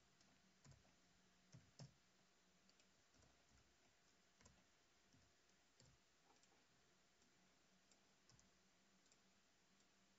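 Near silence with faint, scattered clicks of a computer mouse and keyboard, a couple of them a little louder about a second and a half in.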